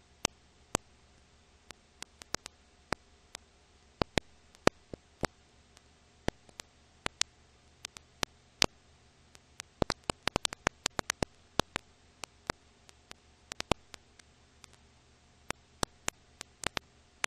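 Irregular crackle of an old film or record transfer: scattered sharp clicks and pops of varying loudness over a faint steady hiss and hum, with a dense run of clicks about ten seconds in.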